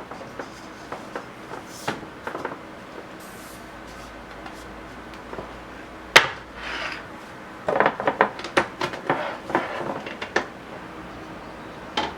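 Glass food-storage containers and their lids clinking and knocking as they are handled. There are a few light clicks at first and one sharp knock about six seconds in. A busy run of quick clinks and knocks follows, from about eight to ten seconds.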